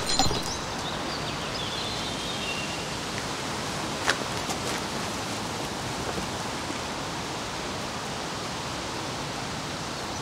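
Steady outdoor background hiss, with a few faint high chirps in the first seconds and a single soft click about four seconds in.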